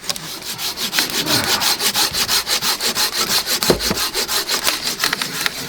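Hand saw cutting through a piece of firewood with quick, even back-and-forth strokes, with a dull knock partway through.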